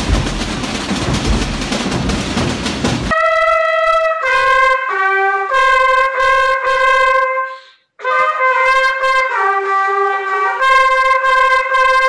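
Drums and bass drums beating in a dense mass for about three seconds. Then two long straight herald trumpets play a fanfare of held notes that steps between pitches, break off for a moment about halfway through, and resume.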